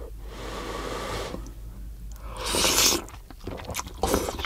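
Person slurping soup-soaked greens of chueotang (loach soup) off chopsticks: a long slurp, then a louder, hissing slurp about two and a half seconds in, followed by light chewing clicks.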